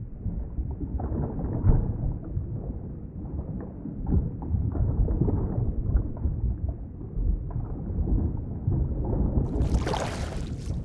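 Underwater ambience: a muffled, low, churning rumble of water with the high end cut off, as heard below the surface. Near the end it changes suddenly to a brighter, hissing rush of water.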